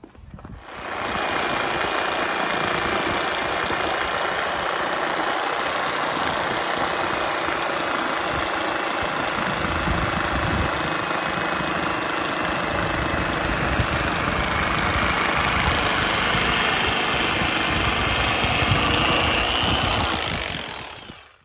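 Electric power saw cutting through a small piece of wood: the motor comes up about a second in, runs steadily through the cut, and winds down near the end.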